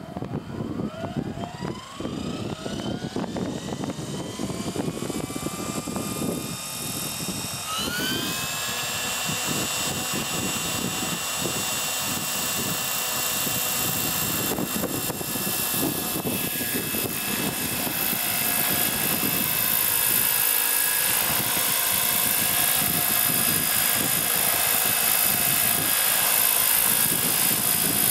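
Hurricane 550 radio-controlled model helicopter spooling up from standstill. Its whine rises steadily in pitch for about seven seconds, jumps up quickly once more, then holds steady at flying speed along with the rotor noise. It grows louder over the second half as the helicopter lifts into a low hover.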